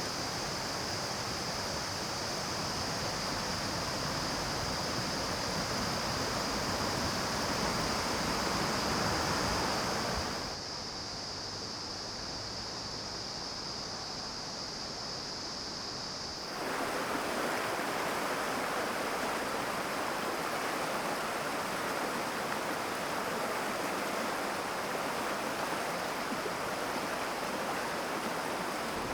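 Mountain stream water rushing and splashing over rocks, a steady full noise, with a steady high-pitched buzz running over it. The rushing drops to a quieter, thinner flow for about six seconds in the middle, then comes back.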